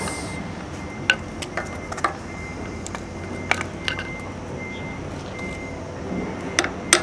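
Scattered metal clicks as a bearing buddy cap is pushed by hand onto a boat trailer wheel hub, then two light hammer taps near the end to start it onto the hub, over a steady background hum.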